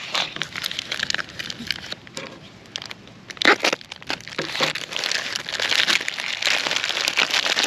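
Crinkly plastic and foil MRE packaging rustling as a pouch is torn and pulled open by hand. It is sparse at first, has a sharp tearing sound about three and a half seconds in, and turns to dense, continuous crinkling in the second half.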